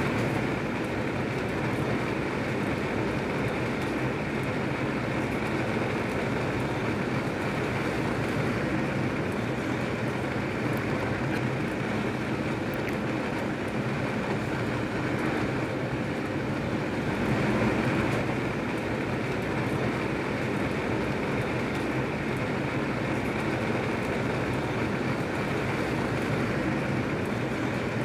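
Regional passenger train running steadily between stations, heard from inside the carriage: a continuous rumble of wheels on the track with a steady low hum. It swells slightly about two-thirds of the way through.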